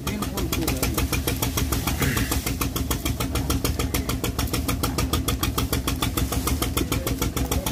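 An engine running steadily, with an even, rapid pulsing beat.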